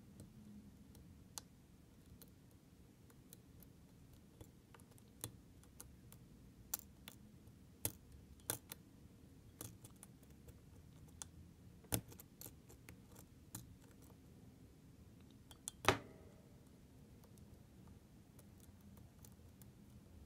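Faint, irregular metallic clicks and ticks of a lock pick working the pin stack of an ASSA Twin V-10 lock cylinder under tension, with one louder, briefly ringing click about 16 seconds in.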